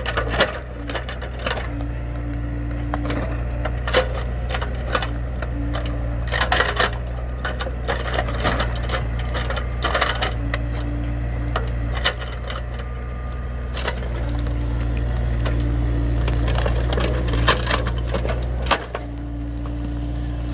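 Mini excavator's engine running steadily under load, with a humming tone that comes and goes as the hydraulics work the boom and bucket. Scattered metallic clanks and knocks come from the bucket digging into soil and roots around an acacia tree stump.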